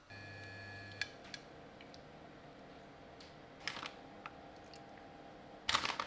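A single electronic beep about a second long from an electric glass-top hob's touch controls, over a faint steady hum. It is followed by a couple of light clicks, a soft rustle about two-thirds of the way through and a louder short rustle near the end.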